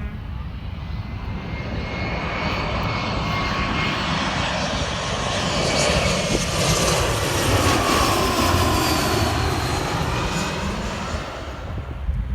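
Airplane coming in to land low overhead: its engine noise swells to a loud peak about six to nine seconds in, then begins to fade. Faint whining tones slide slowly down in pitch as it passes.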